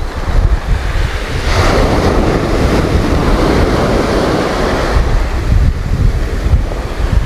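Sea surf breaking and washing up the beach, with wind buffeting the microphone; the wash swells louder about one and a half seconds in and eases off after a few seconds.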